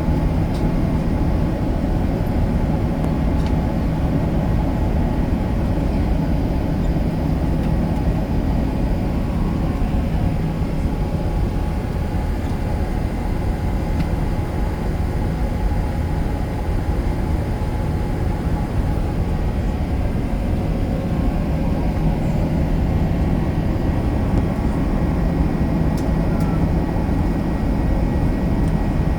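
Airbus A380 cabin noise: a steady, unchanging low drone of the engines and rushing air, heard from inside the passenger cabin, with a faint steady hum underneath.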